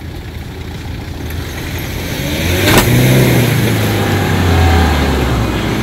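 Diesel 4x4 SUV engine revving up under load during a tow-strap recovery of a stuck vehicle. The revs climb from about two seconds in, with one sharp knock near the middle, then hold high.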